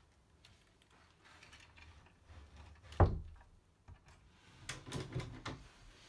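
An interior door knocks shut about halfway through, then a burst of clicks and rattles as its newly fitted lever handle and latch are worked to test them.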